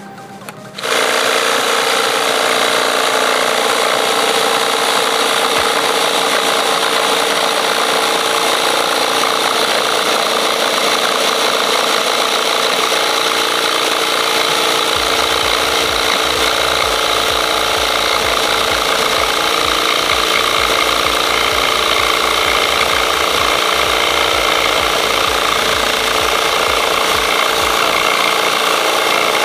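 Cordless drill driving a reciprocating saw attachment, its metal-cutting blade sawing through a 2.5 mm metal sheet. The loud, steady cutting noise starts about a second in and runs on without a break.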